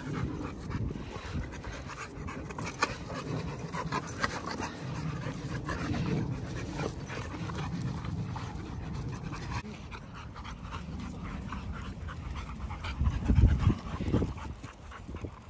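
Dogs panting hard and scuffling as they wrestle in play, with many short scuffs of paws on dirt and grass. A louder low rumble comes near the end as a dog brushes right up close.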